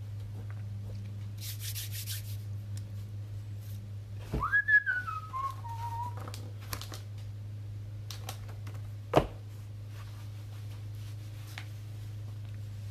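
A person whistling one short phrase about four seconds in: a quick swoop up, then a slide down in small steps, lasting about two seconds. A steady low hum runs underneath, with a brief rustle early and one sharp knock near the end.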